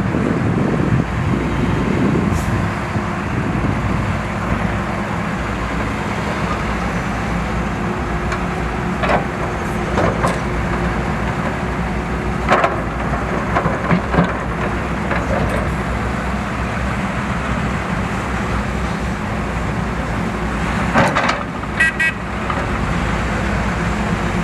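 Heavy construction machinery engines running steadily, with scattered knocks and a brief burst of beeping near the end.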